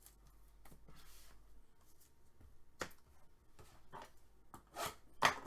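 Hands handling trading cards and a cardboard card box on a wooden tabletop: scattered light taps and rustles, with two louder scuffs near the end.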